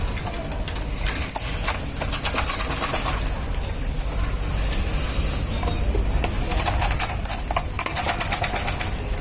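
Domestic quail in a pen: many rapid clicks and rustles, with a few short soft calls, over a steady low rumble.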